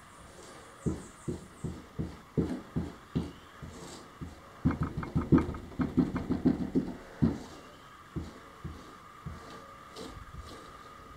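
Wooden stick tamping down on resin-soaked fibreglass cloth in the bottom of a mould, dabbing the resin into the layers. A series of dull thuds: a few spaced ones, then a quick flurry of about five a second in the middle, then slower again.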